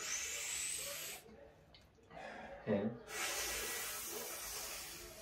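A man making loud sucking, slurping noises with his mouth: two long hissing slurps, one about a second long and the next about two seconds, with a short vocal sound between them.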